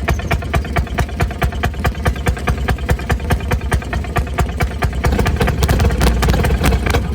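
Rail speeder's small engine running with a steady rapid chugging, about five beats a second, growing louder about five seconds in.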